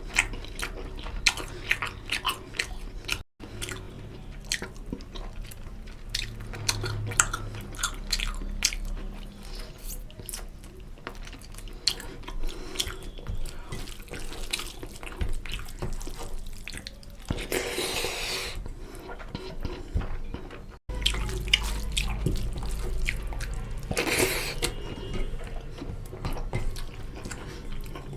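Close-miked eating of chicken curry and rice: wet chewing and mouth smacking as many small clicks, with two brief louder rushes of noise past the middle.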